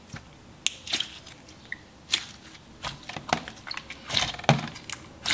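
Clear slime with pom-poms mixed in being squeezed and pressed by hand, giving a run of irregular wet clicks and pops, a loud cluster about four seconds in.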